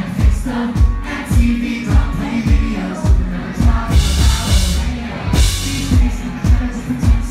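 Live rock band playing with vocals over a steady kick-drum beat and bass, with cymbal crashes about four seconds in.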